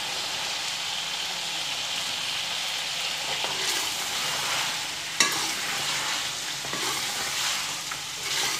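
Chicken masala sizzling steadily in a steel pot as green peas are tipped in, then stirred with a steel ladle, with one sharp metal clank about five seconds in.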